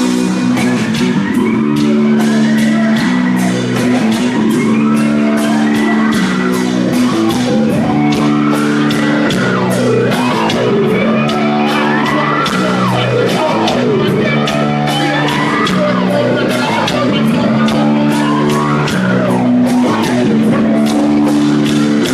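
Live rock band playing loud: sustained distorted guitar and bass chords over a fast steady drum beat, with a wailing line that slides up and down in pitch over the top.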